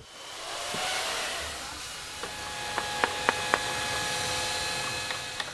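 Electric chainsaw running steadily, cutting into a wooden log. From about two seconds in come several sharp, ringing taps of a mallet striking a carving chisel.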